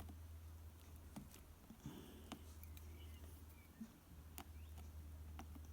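Faint, scattered small clicks and scratches of the backing being picked and peeled off adhesive glue strips on an iPad 2's frame, over a low steady hum.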